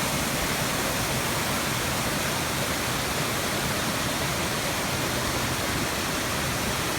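Waterfall: falling water rushing with a steady, even noise.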